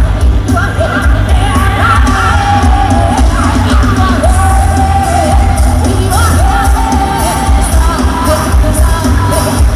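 Live Isan rot hae music from a mobile concert sound truck, heard from about 350 metres away: a heavy pulsing bass under a singer's voice.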